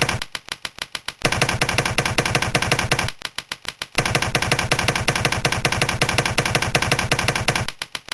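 Fast typing on a computer keyboard: a dense run of rapid key clicks, thinning to sparser, separate keystrokes briefly about a second in, again around three seconds, and near the end.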